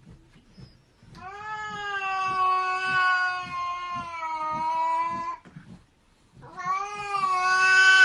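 A cat yowling in two long, drawn-out calls: the first lasts about four seconds, and the second starts near the end and is still going.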